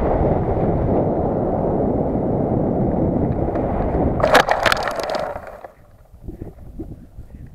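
Wind noise on the nose-mounted camera of a model glider as it glides low over the field, then about four seconds in a burst of thumps and scraping as the glider touches down and slides over the grass. The noise stops about a second later as the glider comes to rest.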